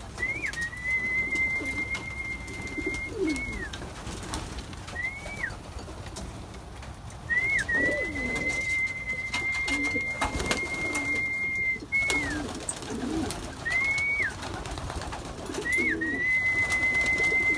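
Racing pigeons cooing while a long, steady whistle is sounded three times, each held for a few seconds and ending in a quick drop in pitch, with two short whistles between: the fancier's call to feed.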